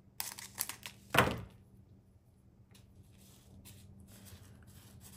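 Light clicks and rustling of hands handling small plastic drill bags and containers for a diamond painting, with one louder knock about a second in.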